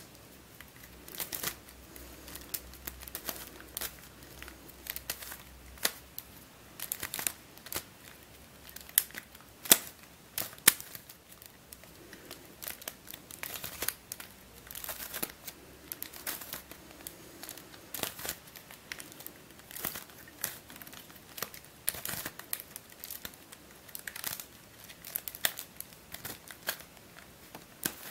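Hand-turned plastic mf8 Starminx I twisty puzzle being scrambled: an irregular run of clicks and scrapes as the plastic pieces are forced past one another, a few much louder than the rest. The puzzle turns stiffly and roughly rather than smoothly.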